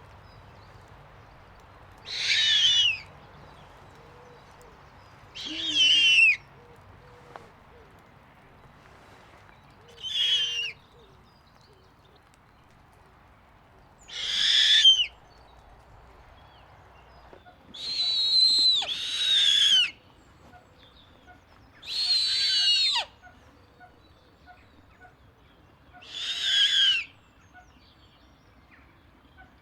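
Snowy owl giving high, shrill calls, each under a second and falling in pitch, repeated about every four seconds; eight calls, two of them back to back about two-thirds of the way through.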